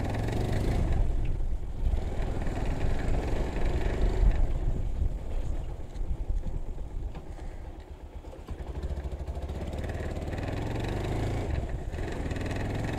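Motorcycle engine running while riding, a steady low rumble that dips briefly about eight seconds in.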